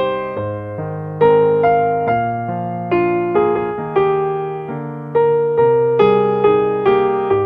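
Soft electric piano music: a slow melody of struck notes over held low chords, each note starting sharply and fading away.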